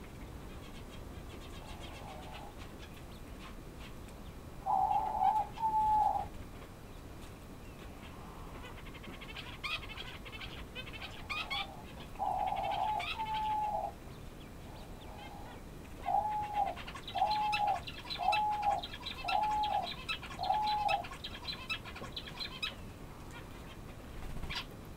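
Male Chinese painted quail calling: short mid-pitched call notes, a pair about five seconds in and another pair near the middle, then a run of five evenly spaced calls about a second apart. Fainter rapid high twittering sounds alongside.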